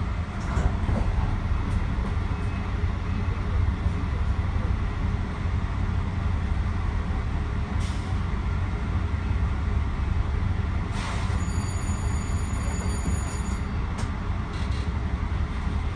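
Metro-North commuter train heard from inside: a steady low rumble with a few sharp clicks. A thin high whine comes in about eleven seconds in and lasts about two seconds.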